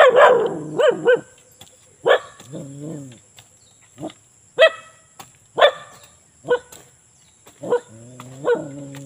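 A dog barking in short single barks about a second apart, with lower drawn-out whines or growls between some of them.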